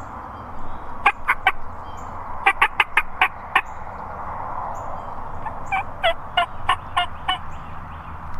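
Wild turkey calling in a run of short, sharp notes that come in three bursts, the last burst with notes that fall in pitch.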